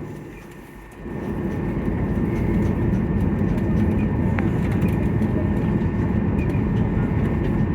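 Boeing 737-800's CFM56 jet engines heard from inside the passenger cabin. They are quieter for the first second, then rise sharply to a loud, steady noise as thrust comes up.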